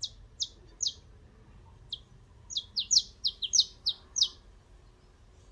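Canary chirping: short, high-pitched notes that each sweep downward. A few come spaced out, then a quicker run of about nine notes follows in the middle before the bird goes quiet.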